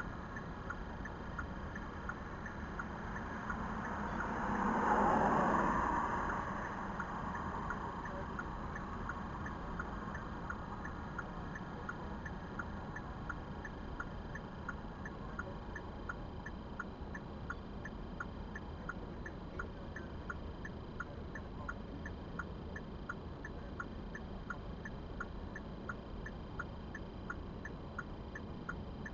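Car turn-signal or hazard-light indicator clicking steadily, a bit over once a second, over the low hum of a car cabin. A swell of noise rises and fades about five seconds in.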